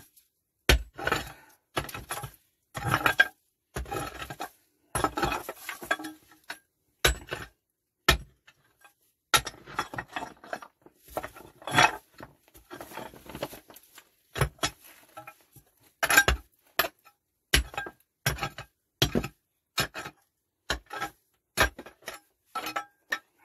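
Short-handled metal mattock striking again and again into soil and loose stones, with the blade clinking on rock. The irregular strikes come about once a second as the packed stone-and-earth fill of a rock-cut shaft is dug out.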